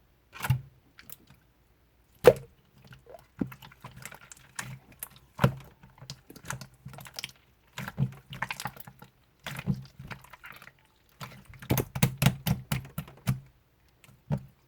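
Clear slime being worked by hand, giving irregular sticky clicks and small wet pops, with a quick run of clicks close together near the end.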